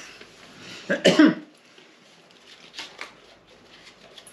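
A person coughs once, sharply, about a second in. A couple of faint light taps follow later.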